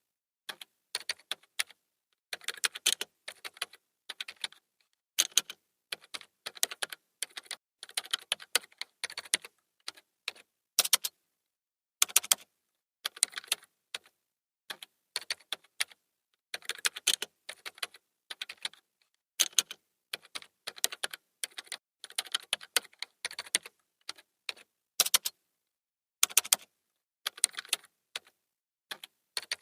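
Typing on a computer keyboard: bursts of rapid, irregular key clicks in runs of a second or two, broken by short pauses.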